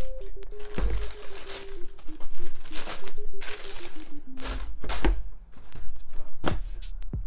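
Shoebox tissue paper and paper shoe stuffing crinkling and rustling as sneakers are lifted out of the box and unstuffed by hand. Under it, background music with a simple stepping melody and a bass beat.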